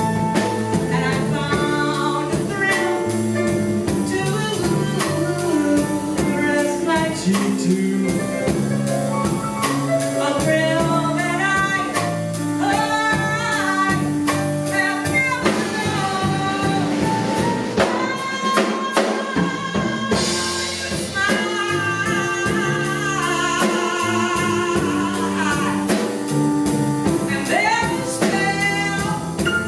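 A live band playing: a woman singing over grand piano, electric bass guitar and a drum kit keeping a steady cymbal beat. The bass drops out briefly past the middle, then comes back in.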